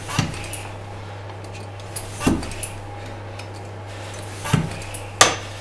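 Hatsan manual high-pressure PCP hand pump being worked in slow, heavy strokes, with a metallic knock at each stroke roughly every two seconds. The pump is stiff and sticking a little as the tank pressure climbs toward 200 bar.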